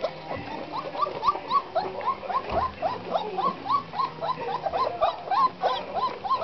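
Young Black Russian Terrier puppies squeaking and whimpering in a quick run of short, high squeaks that rise and fall, about three or four a second.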